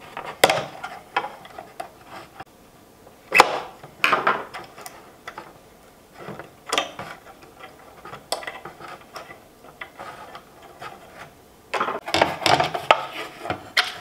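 Hard plastic clicking, knocking and scraping as a clipped plastic Honda CRX center-console piece is worked apart by hand and with a screwdriver. The knocks come irregularly, with a busier run of them near the end.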